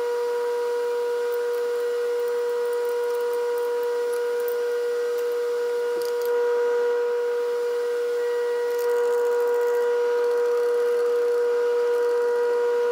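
Steady electrical hum at one unchanging pitch with overtones, from shop machinery such as a running motor. A faint tap comes about six seconds in.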